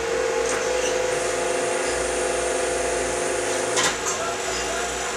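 Hydraulic deep-drawing press running, its pump giving a steady whine that strengthens at the start while the ram lifts off the die. A sharp clack comes a little under four seconds in, after which the whine eases.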